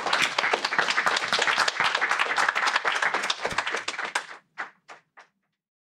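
A small audience applauding, dense clapping that thins to a few last claps about four and a half seconds in, then stops.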